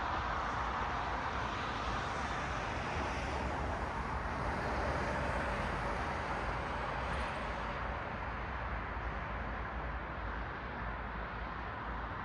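Road traffic: cars passing on a city street, a steady rush of tyre and engine noise that swells and eases as vehicles go by.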